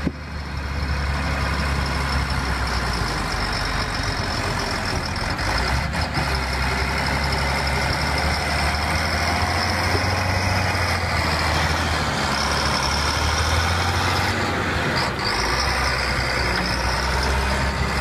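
Caterpillar motor grader's diesel engine running steadily as the grader blades and mixes wet soil.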